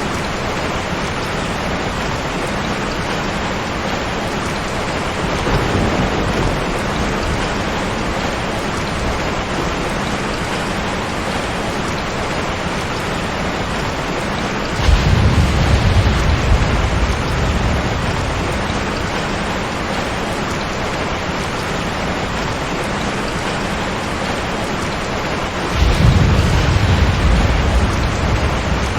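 Steady heavy rain hissing, with low thunder rumbles rolling in about halfway through and again near the end, each lasting a few seconds; a fainter rumble comes about five seconds in.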